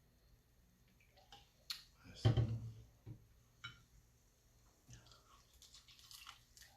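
A person chewing KFC fried chicken close to the microphone: scattered wet mouth clicks and lip smacks, with one louder, longer eating noise a little over two seconds in.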